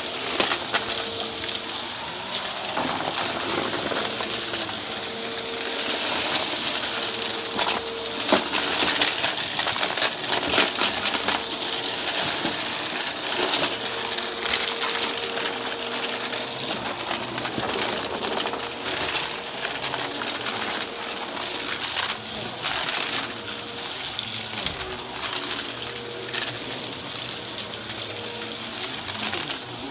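Upright bagless vacuum cleaner running on carpet, its brushroll crunching through scattered dry debris. Steady motor hum and rush of air with constant crackling, clicking and rattling as the bits are sucked up.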